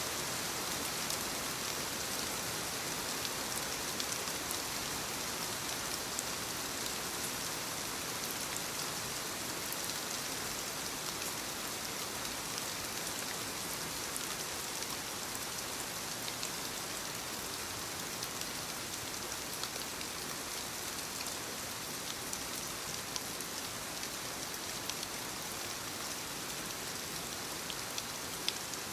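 Light steady rain falling on leaves: an even hiss with scattered individual drop taps.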